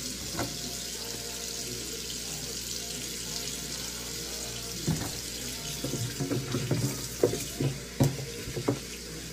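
Tap water running into a stainless steel sink while raw chicken pieces are washed by hand with dish soap. From about five seconds in there is splashing and a string of sharp knocks as the meat is handled against the sink, loudest twice near the end.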